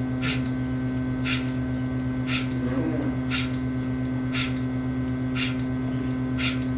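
Steady mechanical drone from farm machinery, with a short hiss-like tick about once a second.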